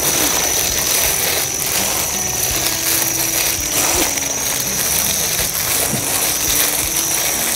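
Cooked rice being mixed and turned with egg and seasoning, a steady scraping with many small clicks.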